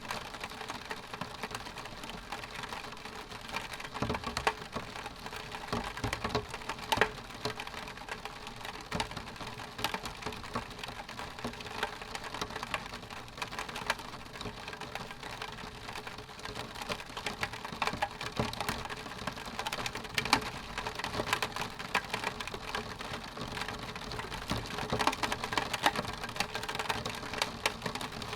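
Rain pattering on a window pane: a dense, steady stream of small drop ticks against the glass.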